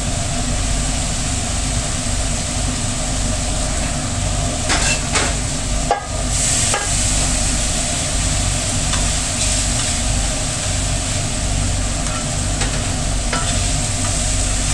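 Food sizzling on a steel flat-top griddle, with a steady low hum underneath and a few short metal clanks and scrapes of spatula work, the sharpest about six seconds in.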